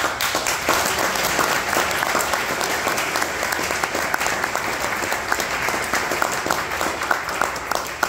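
Audience applauding, with one person clapping close by. The applause thins toward the end into more separate claps.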